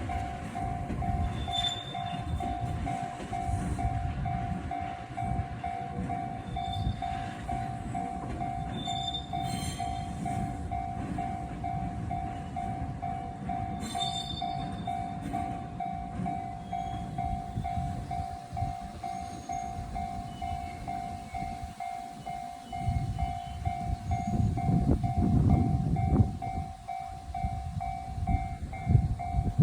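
Japanese level-crossing electronic warning bell ringing in steady, even repeats, while railway cars roll past with a continuous rumble and a few short, high wheel squeals. The rumble grows louder about three-quarters of the way through.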